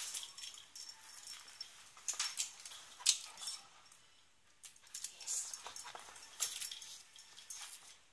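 Pumi dog on a shaggy rug: light jingling and rustling in three irregular bursts, the loudest click about three seconds in.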